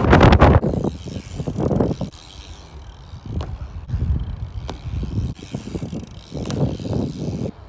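Wind buffeting the microphone loudly for the first half-second, then a BMX bike's tyres rolling on concrete in swelling rushes, with a few sharp knocks as the bike hits and lands off the concrete ramps. Gusts of wind on the microphone run under it.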